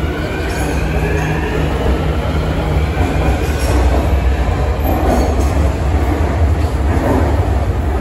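Beijing Subway Line 6 train pulling out of the station behind the platform screen doors. Its electric traction motors give a rising whine as it speeds up, fading about three seconds in, over a heavy low rumble of wheels on rail.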